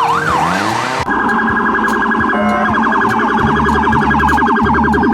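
Electronic police-siren sound effect: a wailing siren for about a second, then switching to a fast-pulsing electronic alarm. A low, steady beat comes in after about three and a half seconds.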